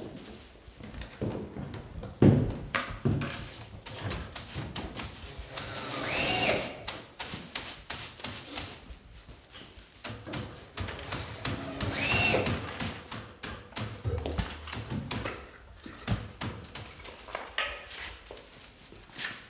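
Knocks and taps of hand work on a roof-window frame, with one loud thud about two seconds in. A cordless drill driver runs briefly twice, its whir rising and falling, about six and twelve seconds in.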